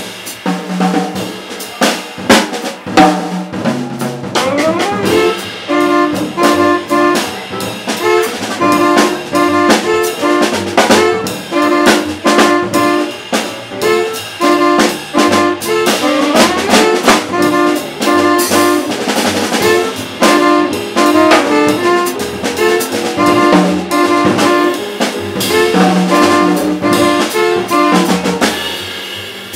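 Live jazz: two tenor saxophones play a short repeated figure together over a drum kit. The drums are mostly alone for the first few seconds before the horns settle into the riff.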